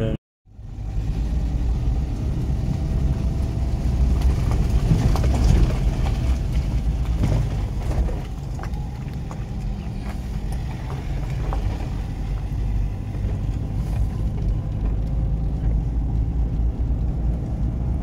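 Road and engine noise heard inside a moving car: a steady low rumble after a brief dropout to silence at the very start.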